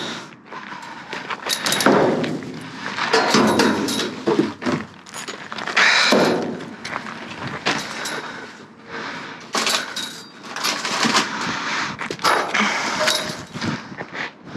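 Rummaging through the contents of a dumpster: irregular clunks, knocks and clatters of packages and objects being moved and pulled out, with rustling of bags and wrappers.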